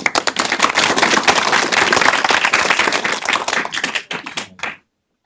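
Audience applauding: many hands clapping together, thinning to a few scattered claps and stopping just before the five-second mark.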